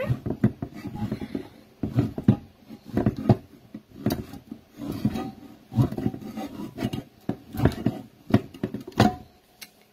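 Pampered Chef hand-turned can opener working around the rim of a metal can: a run of irregular clicks and grinding scrapes as the knob is cranked, with a few short squeaks.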